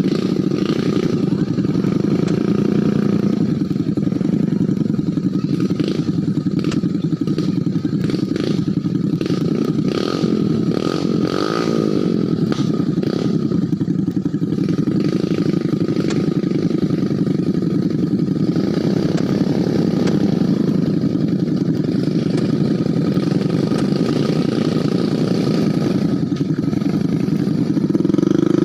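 Motorcycle fitted with a tractor engine, running steadily with a dense low chugging, with some clattering about a quarter of the way through and a slightly louder run near the end.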